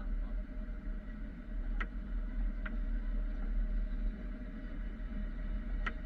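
Snowplow truck's engine and drive noise heard inside the cab, a steady low rumble as it pushes through deep snow, with three short sharp clicks.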